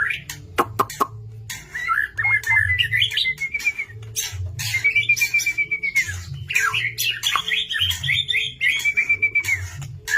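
White-rumped shama (murai batu) in full song: a run of loud whistled and warbling phrases, with a few sharp clicks about half a second in.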